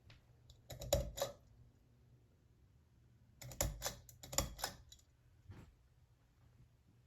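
Two bursts of quick, sharp clicks and rattles, the first about half a second long and the second about a second and a half, with a single click after. A faint steady low hum runs underneath.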